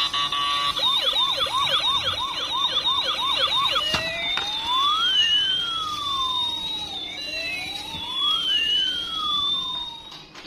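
Toy fire rescue van's electronic siren: a fast yelp of about four rising chirps a second for a few seconds, then switching to a slow rising-and-falling wail that stops about ten seconds in.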